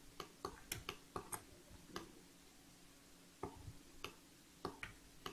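Faint, irregular clicking of a computer keyboard and mouse: about a dozen short clicks in small clusters, with a pause of a second or so in the middle.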